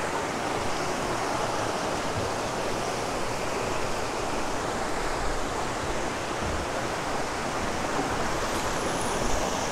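Stream water running, a steady even rush.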